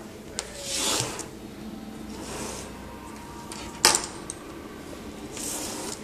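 Yamaha R6 wiring harness being handled: rustling of the wire loom with a few light clicks of its plastic connectors, the loudest a sharp click about four seconds in.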